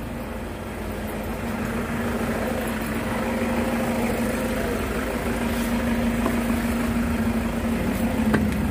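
Toyota Fortuner engine idling steadily: an even hum with a held low tone.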